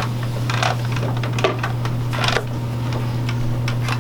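Gift wrapping paper rustling and tearing in a few short crinkles over a steady low electrical hum.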